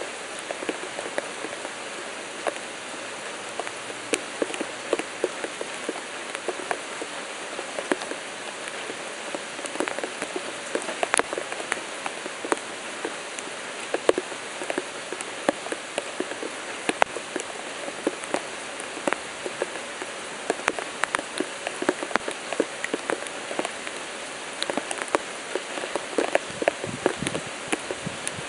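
Rain falling on a surface: a steady hiss with many irregular drop ticks and patters, some noticeably sharper than others.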